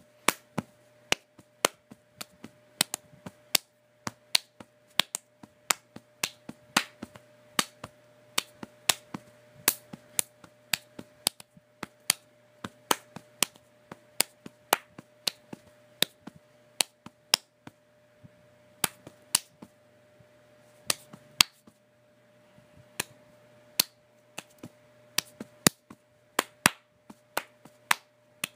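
Sharp irregular clicks, about two a second and varying in loudness, over a faint steady hum.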